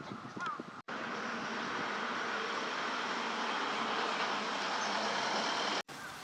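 Short gliding bird calls, then an abrupt cut to about five seconds of loud, steady rushing noise, which breaks off just as suddenly.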